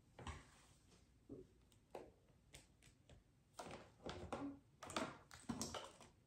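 Tarot cards being shuffled and handled: a faint string of irregular taps and rustles, busier in the second half.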